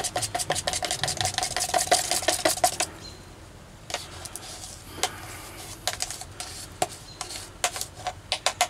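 Hardened paintbrush stirring fiberglass resin and catalyst in a plastic mixing cup, scraping and clicking quickly against the cup wall. The clicking is dense for about the first three seconds, drops away briefly, then comes back sparser and picks up again near the end.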